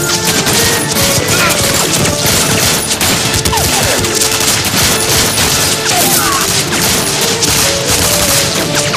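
Film battle-scene soundtrack: dense, rapid rifle and machine-gun fire throughout, with music underneath.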